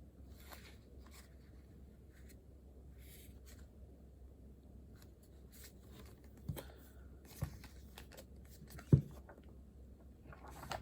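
Pen or pencil scratching on paper in short strokes, with a few soft knocks on the desk, the loudest about nine seconds in.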